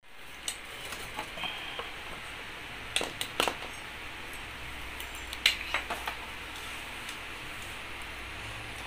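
Claw hammer and hands working at a nailed wooden crate as it is pried open: scattered sharp metallic clinks and wooden taps, bunched about three seconds in and again around five to six seconds in, with a brief high squeak about a second and a half in.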